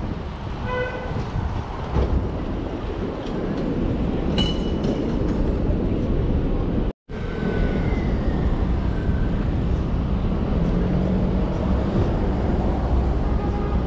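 Steady low rumble of city street traffic, with a brief pitched tone about a second in and the sound cutting out for an instant about halfway through.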